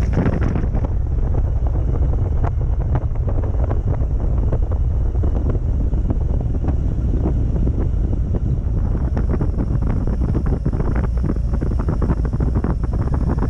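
Heavy wind buffeting on the microphone of a camera riding on a Harley-Davidson Road King, over the motorcycle's V-twin engine running at a steady cruise.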